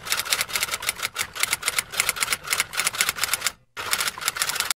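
Typewriter sound effect: a rapid run of key clicks, several a second, with a short pause near the end before a last burst of clicks that cuts off abruptly.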